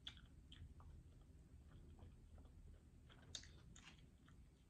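Faint, close-miked chewing of a fried chicken wing, with small mouth clicks and smacks. A couple of sharper clicks come a little past three seconds in.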